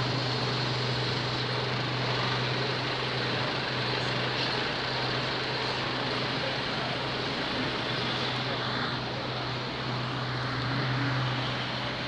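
Steady urban traffic noise with a constant low hum, no single event standing out.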